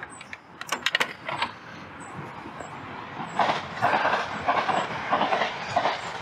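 A freshly landed common carp flapping in a landing net, giving a few sharp clicks and then a run of rapid, loud slaps and rustles against the net and mat.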